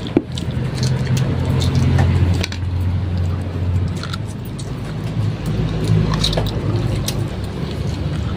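People eating: short wet clicks of chewing and lip-smacking over a loud, low, steady hum.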